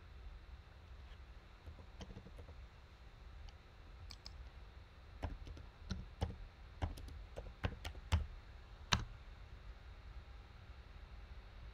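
Computer keyboard keystrokes typing a username and password: a few faint clicks at first, then a run of irregular taps between about four and nine seconds in, the loudest at about nine seconds.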